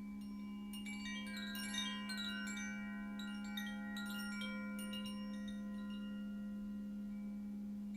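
Chimes ringing in a quick cascade of many high, overlapping notes over a steady low drone. The chiming starts about a second in and dies away after about five seconds, leaving the drone.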